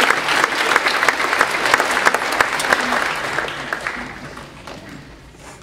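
Audience clapping, dense and steady at first, then thinning out and dying away over the last couple of seconds.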